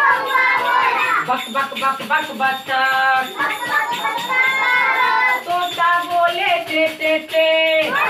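A woman and a group of young children singing a Hindi rhyme of animal calls together in chorus, with long held notes in the second half.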